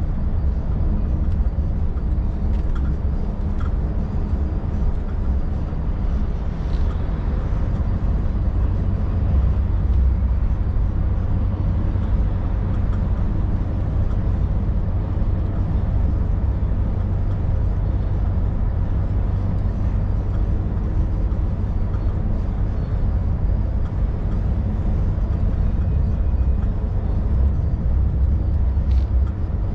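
Scania V8 530S truck's 16-litre V8 diesel running steadily under way, a constant low drone with road noise, heard from the cab.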